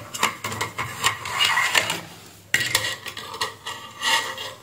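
Clicks, scrapes and rattles of a circuit board and metal tools being handled on a workbench, in two spells with a short pause about halfway.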